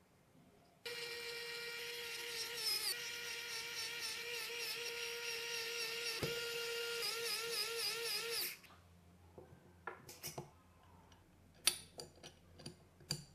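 A small electric screwdriver running with a steady high whine for about seven and a half seconds, driving in the valve-cover screws; its pitch wavers near the end. Then a handful of light clicks and taps of small parts being handled.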